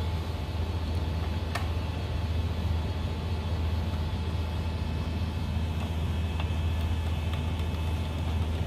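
Steady low background rumble, with a sharp click about a second and a half in and a few fainter clicks later, as a small screwdriver tightens a wire into a screw terminal on an access-control power supply board.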